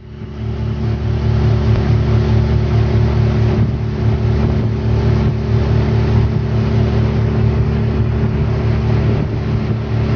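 Outboard motor pushing a small boat at planing speed, a steady engine drone over the rush of the hull through the water; it rises in over the first half-second.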